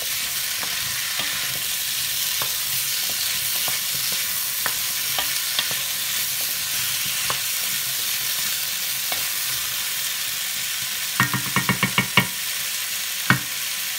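Chayote cubes, onions and bacon lardons sizzling steadily as they brown in a nonstick pot, stirred with a wooden spoon that scrapes and clicks against the pot. Near the end a quick run of about six knocks and then one more, the wooden spoon tapping the pot.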